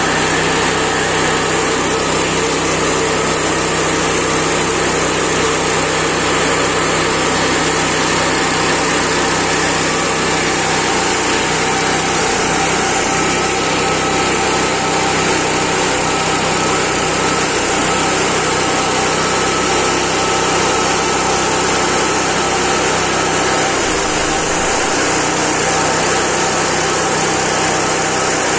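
Chipper shredder driven by a small petrol engine, running steadily at speed while leafy tea branches are fed into its hopper and shredded.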